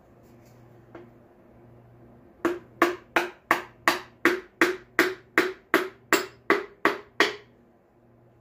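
Hammer handle tapping a piston down through a ring compressor into a cylinder bore of a 350 small-block Chevy: a steady run of about fourteen sharp knocks, roughly three a second, after a single faint tap about a second in.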